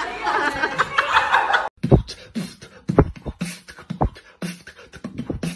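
A drum beat in the style of beatboxing starts just after a sudden cut, under two seconds in. It has deep booming kick hits about once a second, with sharp hissing snare-like hits between them.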